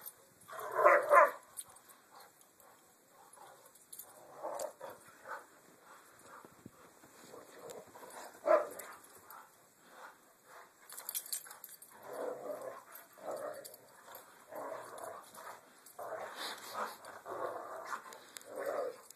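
Dogs, one a German shepherd, vocalizing in scattered short bursts while they wrestle and chase each other in snow. The loudest bursts come about a second in and at about eight and a half seconds, and they come more often through the last seven seconds.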